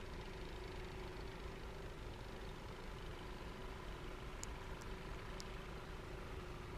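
Steady blizzard wind rumbling on the microphone, with a faint steady mechanical hum underneath and three brief faint ticks about four and a half to five and a half seconds in.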